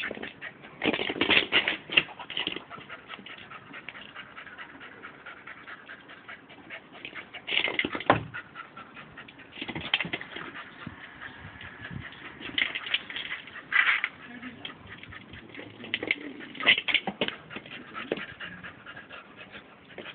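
Staffordshire bull terrier puppy whimpering and whining in several bouts as she worries at her ball, frustrated by it, with short knocks and scrapes in between.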